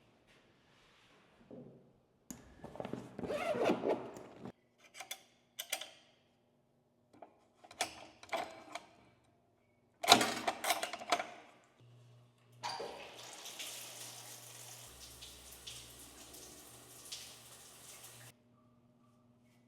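Several short clatters and knocks, then a token-operated shower's water spray hissing steadily for about six seconds before cutting off suddenly.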